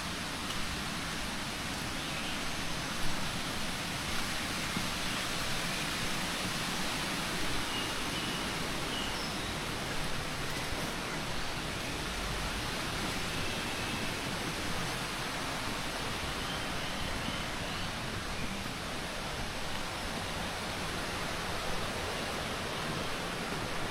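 Steady rushing of running water, with faint short bird chirps now and then over it.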